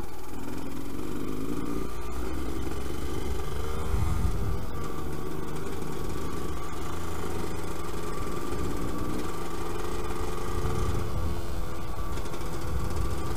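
Yamaha DT125 YPVS single-cylinder two-stroke motorcycle engine running under way, its note wavering in the first few seconds and then holding steady. A low rumble runs beneath it, strongest about four seconds in.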